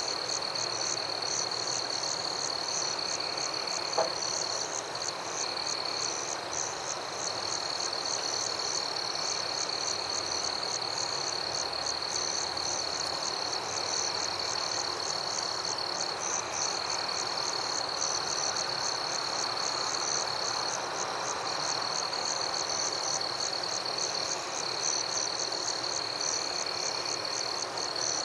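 Night chorus of frogs and insects: a steady high trill with rapid pulsing calls above it and softer chirps repeating every few seconds. A single short click about four seconds in.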